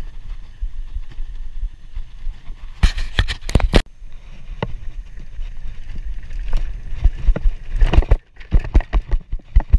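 Scott Scale hardtail mountain bike riding down a dirt track, with steady wind buffeting and tyre rumble. Clusters of sharp rattles and clacks come from the bike jolting over bumps, about three seconds in and again near the end.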